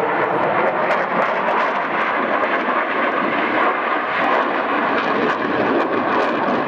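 MiG-29 fighter's twin Klimov RD-33 turbofan jets running loud and steady as the jet pulls through a hard turn in its display, a dense rushing noise without breaks.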